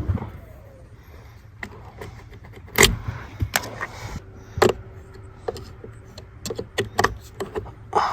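Irregular sharp clicks and knocks of hands working in the truck's fuse box, pulling out a relay; the loudest knock comes about three seconds in.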